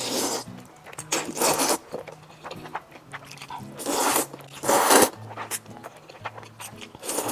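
A person slurping sauce-coated Nanchang rice noodles off chopsticks in several long, wet slurps, the loudest about four to five seconds in. Soft background music plays underneath.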